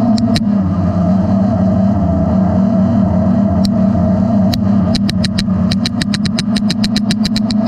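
DJI Inspire 1 quadcopter's four motors and propellers running with a steady hum, heard from a camera mounted on the drone itself. A fast run of sharp clicks, about five a second, sets in about five seconds in.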